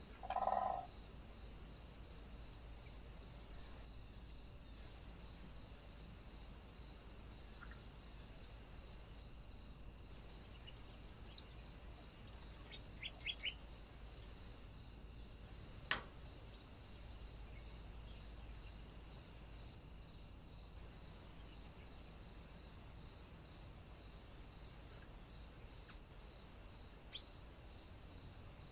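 Faint steady high hiss with a quiet, evenly pulsing tone running under it, broken by a few short bird calls: one louder call just after the start, three quick chirps about halfway through and a single chirp near the end, plus one sharp click.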